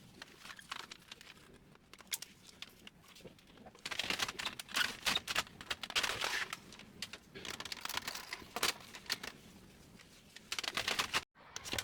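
Hand work on hard plastic printer parts: quick clicks and knocks, with stretches of dense scraping and rubbing midway and near the end.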